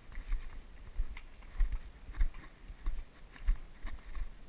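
Footsteps of a player walking over rough ground, heard as low thumps about every half second to second, with faint clicks from gear and handling noise on a body-worn camera.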